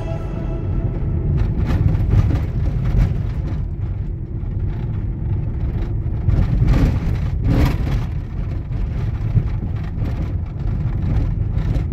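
Car driving on a narrow asphalt road, heard from inside the cabin: a steady low rumble of tyres and engine, with a few brief knocks from the road surface.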